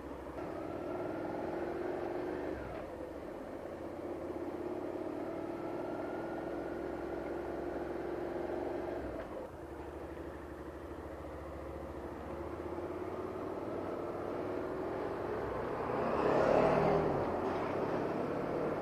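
Honda Hornet 600 inline-four motorcycle engine pulling away and accelerating through the gears, its pitch climbing and dropping back at each shift about three and nine seconds in. About sixteen seconds in, a louder rush of noise comes in with a falling tone.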